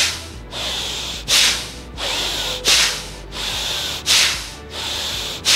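Bhastrika pranayama (bellows breath): rhythmic forceful breathing, a short loud breath alternating with a longer softer one, about one cycle every second and a half, five loud breaths in all.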